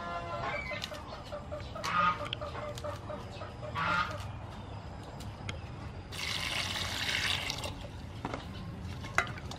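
Domestic fowl calling twice, short calls about two seconds apart. A little past the middle, water is poured into a steel bowl of lettuce and vegetables for about a second and a half, followed by a few light clicks near the end.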